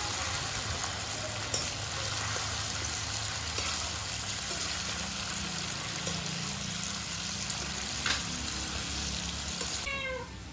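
Chicken pieces sizzling steadily in hot oil in a steel wok-style pan as they are stirred, with a few sharp clinks of the metal spatula against the pan. The sizzling cuts off abruptly near the end.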